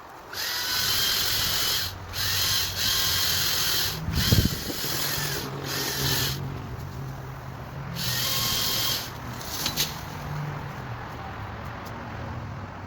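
Makita 18Vx2 LXT brushless battery chainsaw running in repeated bursts of about a second each as the trigger is squeezed and released, with the chain whirring. There is a heavy thump about four seconds in.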